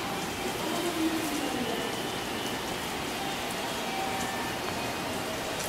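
Steady, even hiss of background noise, with a faint pitched sound in the first second or two.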